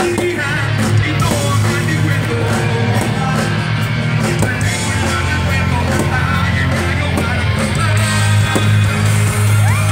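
Live rock band playing through a loud amplified sound system, with electric guitars over a heavy bass line and drums.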